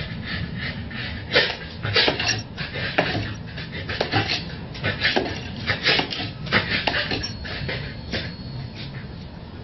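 A corgi hopping up and down on a windowsill, its paws knocking and scraping on the ledge in irregular taps, about one or two a second.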